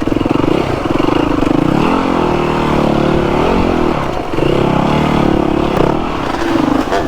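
Dirt bike engine working hard up a steep hill, the revs rising and falling repeatedly as the throttle is opened and eased.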